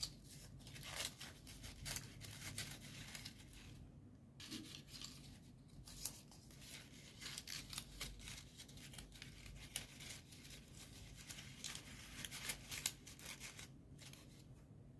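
Folded paper origami units rustling and crinkling as they are handled and slotted together into a kusudama, a run of small crackles and clicks with a couple of brief lulls.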